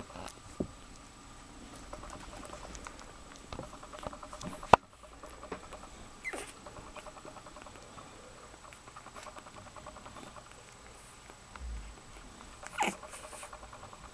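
Boxer puppies suckling: fast runs of small smacking clicks with occasional short squeaks. There is one sharp knock a little under five seconds in.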